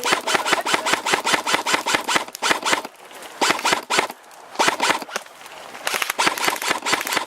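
Airsoft electric guns firing on full auto in long bursts of rapid clicks, with a brief pause about three seconds in and a quieter stretch before the firing picks up again near the end.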